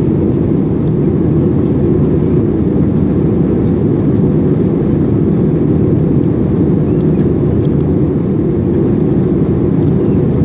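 Steady cabin noise inside an airliner in flight: the even, loud rumble of the engines and rushing air, heaviest in the low range, with a few faint ticks.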